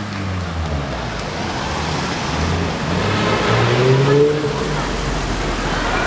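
Cars driving slowly past on a city street, engines running over a rush of traffic noise. One engine revs up about halfway through.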